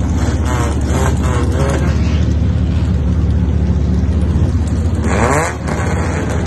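Mini stock race car engine running at low speed, heard from inside the car, with the revs rising briefly in the first couple of seconds and again about five seconds in before easing off.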